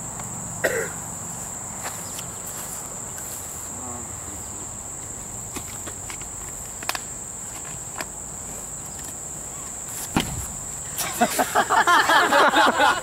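Steady high chirring of crickets, then about ten seconds in a single sharp blast as an air cannon fires a charge of flour. Loud laughing and shouting follows at once.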